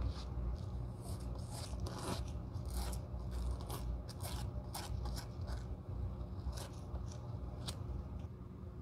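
Metal spatula spreading sticky clear adhesive over a boot heel and a rubber heel-plate blank: a run of short, irregular scrapes and tacky clicks.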